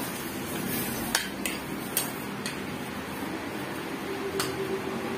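A few faint, sharp clicks and taps from handling the phone chest-mount harness, scattered over a steady background hiss.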